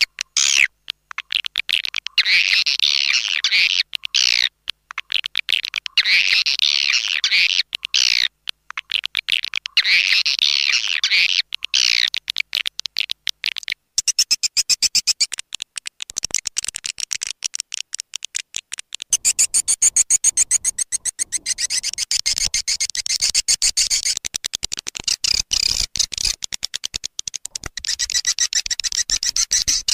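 Swiftlet lure call track: rapid, high twittering chirps of edible-nest swiftlets, played to draw the birds to nest. For the first half the twitter comes in phrases of about two seconds, repeating roughly every four seconds; from about halfway it runs on as a denser, higher, faster stream of chirps.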